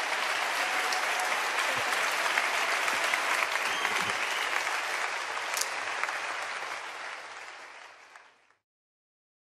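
A large hall audience applauding steadily, fading out near the end.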